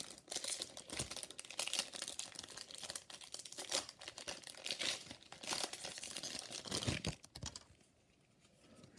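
A foil trading-card booster pack wrapper crinkling and tearing as it is opened, stopping about seven and a half seconds in.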